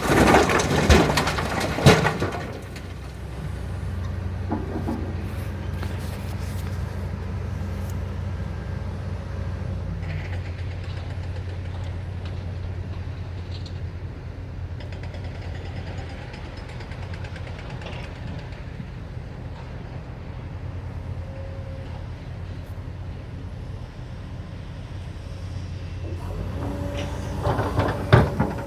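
Heavy diesel engines of an excavator and dump truck running steadily at a low pitch. Loud clattering of sand and rock dropping into the truck's steel bed comes at the start and again near the end.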